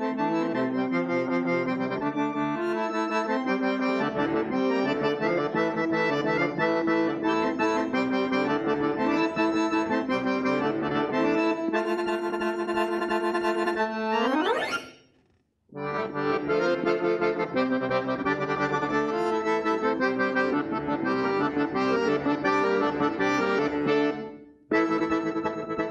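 Accordion playing a quick-moving folk melody over a held low note. About halfway through it sweeps up in a fast rising run and breaks off briefly, then starts again, with another short break near the end.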